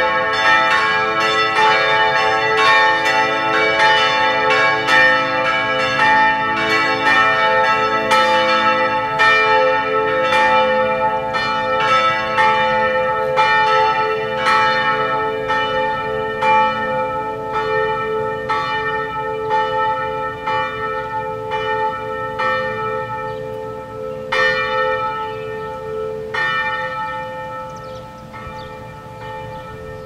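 Church tower bells ringing together, strokes coming about twice a second over a steady hum. The strikes thin out near the end and the ringing dies away.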